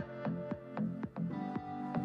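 Electronic background music with a steady beat of about four drum hits a second under held synth notes.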